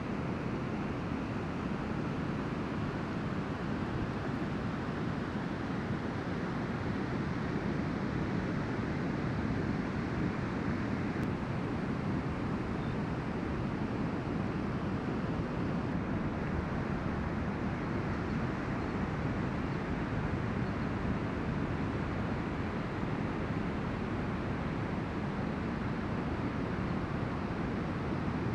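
Steady, even wash of ocean surf breaking on a beach.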